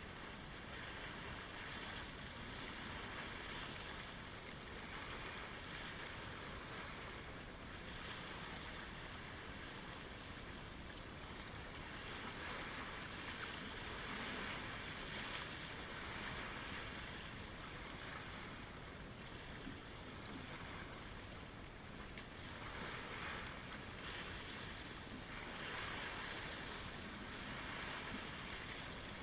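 Lake waves washing in: a steady rush of water that swells and fades every few seconds.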